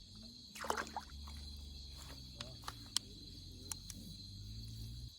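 Crickets trilling steadily, with a few sharp clicks and a low rumble of handling noise close to the microphone.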